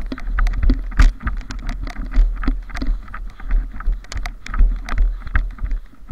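Footsteps crunching and swishing through deep snow, about two steps a second, over a low rumble on the microphone.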